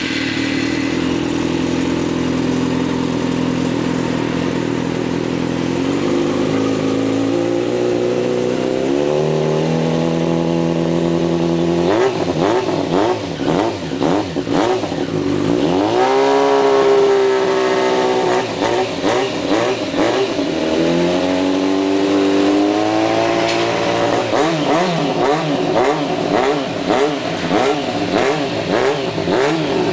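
Yamaha Fazer 600's inline-four engine running through a stainless-steel Coyote SS2 sport exhaust. It idles steadily at first, is held at higher revs about a third of the way in, then is revved in repeated throttle blips, the pitch rising and dropping each time. The exhaust note is deep and throaty.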